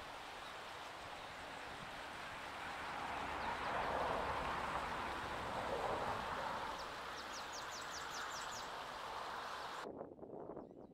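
Wind blowing through the trees and across the microphone, swelling for a few seconds in the middle. Near the end a bird gives a quick run of short, high, rising notes. The wind noise cuts off abruptly about ten seconds in.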